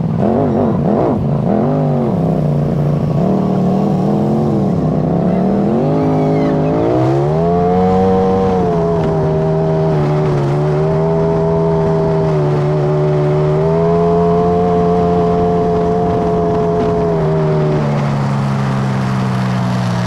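Polaris RZR side-by-side engine pulling away and accelerating, heard from on board. Its pitch wavers, then climbs over several seconds and settles into a steady cruise with small rises and dips in engine speed.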